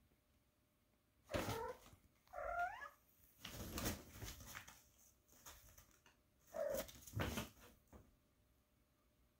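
A cat meows twice in quick succession, then once more later. Bursts of rustling from the fabric of a pop-up play tunnel come between the meows as a kitten scrambles inside it.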